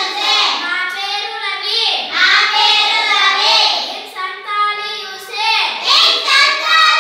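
A group of young schoolchildren chanting together in Telugu in a sing-song way, reciting from the blackboard, with short breaks between phrases.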